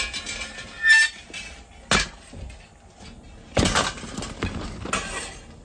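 A series of knocks and clinks of hard objects being handled, one with a brief ringing tone about a second in and a quick cluster of knocks in the second half.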